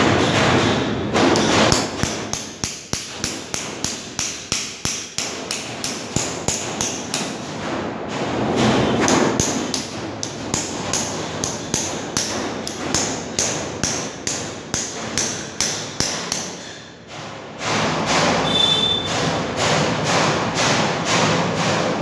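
Hammer tapping a steel ceiling-fan anchor fastener into a hole in a concrete ceiling, a long run of quick, even blows about three or four a second, to drive it in until its sleeve grips. The blows stop about 17 seconds in, and a few seconds of rougher, continuous noise follow.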